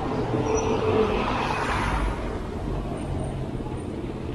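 Street traffic noise heard from a moving bicycle: a steady rumble of road traffic, swelling from about a second in as a vehicle goes by, then settling back.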